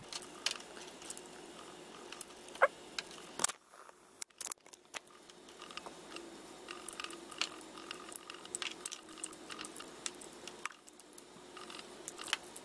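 Faint scattered clicks, taps and scrapes of a metal multi-bit screwdriver being handled and worked against a small plastic backup camera housing.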